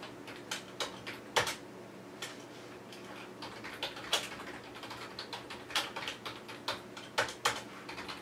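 Typing on a computer keyboard: irregular key clicks at an uneven pace, with a few louder strokes among them.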